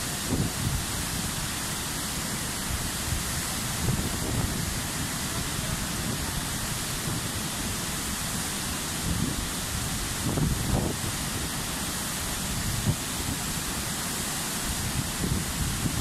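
Waterfall's steady rush of falling water crashing into its plunge pool, a constant even roar of water noise. A few brief low rumbles rise over it, around ten seconds in and again near the end.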